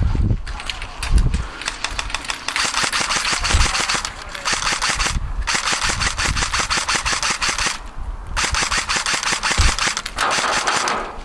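Airsoft electric guns firing full-auto: long strings of rapid shots, broken by short pauses about five seconds in and again about eight seconds in.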